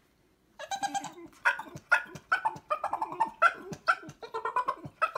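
Pit bull-type dog 'talking': a long run of short, pitched yowls and grumbles in quick succession, starting about half a second in.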